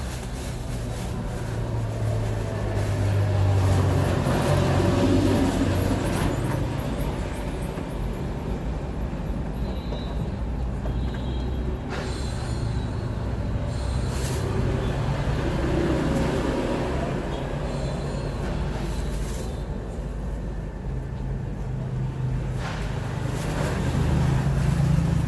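Road traffic passing close by: vehicle engines rumbling, swelling and fading as vehicles go past, loudest about four, sixteen and twenty-four seconds in.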